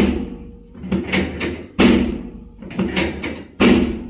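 Heavy thuds in an even rhythm, one about every two seconds, each followed by a lighter hit or two.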